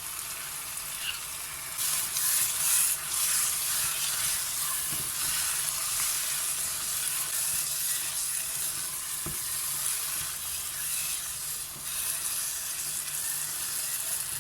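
Food sizzling as it fries in oil in a pot. The hiss grows louder about two seconds in, with occasional scraping from stirring.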